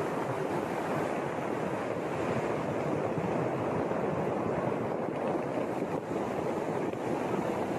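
Steady rush of fast-flowing floodwater, an even, unbroken roar of water with no distinct splashes or strokes.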